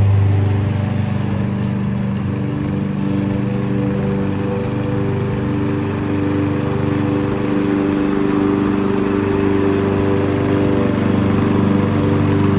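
Gasoline walk-behind push mower running steadily at a constant engine speed as it is pushed across the lawn, cutting grass.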